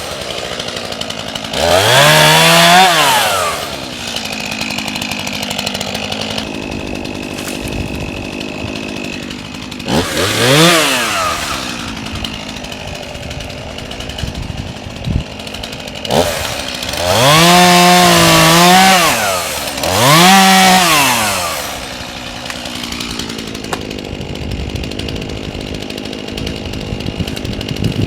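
Chainsaw idling, revved up four times for a second or two each, its pitch climbing and falling back to idle every time.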